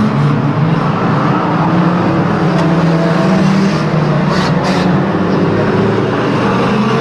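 Several banger racing cars' engines running together at speed as the cars race round the oval, a steady loud mass of engine noise. Two brief high hisses sound about four and a half seconds in.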